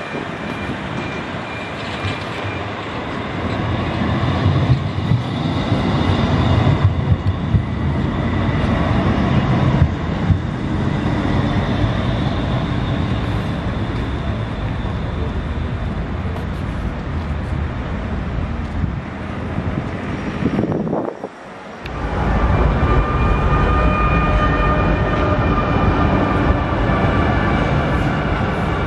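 Electric street trams running along the track: wheels rolling and rumbling on the rails, with a few thin steady whining tones above. After a short break about two-thirds of the way in, another tram passes with a clearer steady whine.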